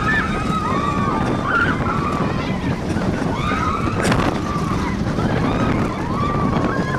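Bobsled roller coaster car running at speed through its trough: a steady rumble of the wheels with wind on the microphone. Several short cries that rise and fall in pitch come over it at intervals, riders whooping.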